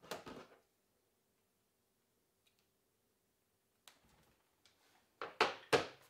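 Handling noises of over-ear headphones and their cable: a short rustle at the start, a few faint clicks about four seconds in, then two louder rustling knocks close together near the end.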